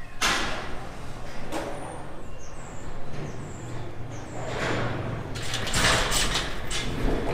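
Livestock sale barn noise: steel pen panels and gates rattling and clanging, thickest in the last couple of seconds, over a steady low hum. A few short high chirps come through about two to four seconds in.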